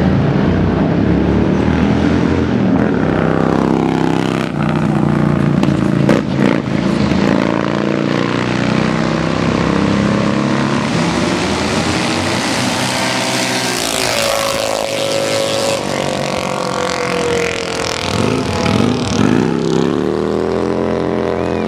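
Small minibike engines revving hard in a drag race, their pitch climbing and falling again and again, with a dip and climb near the end.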